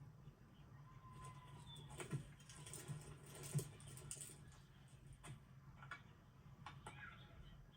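Faint scattered light clicks and taps over a low steady hum, with a brief faint whistle-like tone about a second in.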